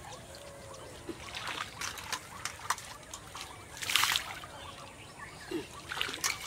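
Water thrown from a bowl splashing onto the surface of a small canal, one loud splash about four seconds in and a smaller one near the end, with light trickling and dripping between.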